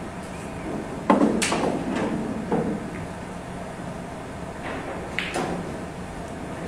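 Pool balls knocking on a billiard table: a sharp clack about a second in, a second one just after it and a lighter knock a second later, then two more quick clicks near the end.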